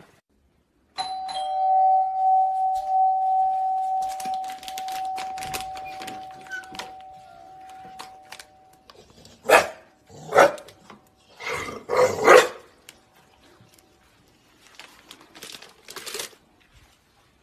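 A two-tone doorbell chime rings about a second in and fades away slowly. A dog then barks several times, loudest in the middle stretch.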